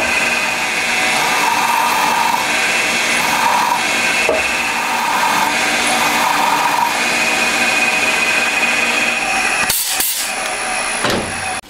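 Milling machine spindle running steadily while a center drill cuts a starter hole in a steel gear blank. Just under ten seconds in, two short hissing blasts come from an air blow gun clearing the chips.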